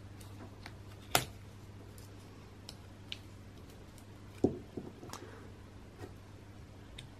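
Small plastic clicks and knocks from handling a Playmobil figure and its snap-on towel piece, with two louder knocks, about a second in and about four and a half seconds in. A faint steady low hum runs underneath.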